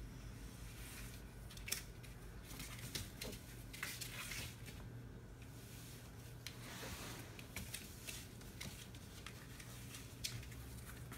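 A small fluffy pet scrabbling on sheets of cardboard as it grabs and wrestles a dangled plush toy: faint scratchy rustling with scattered sharp clicks.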